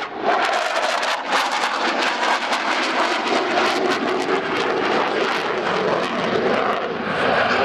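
Jet fighter's engines heard in flight as a loud, continuous rushing noise with a dense crackle running through it.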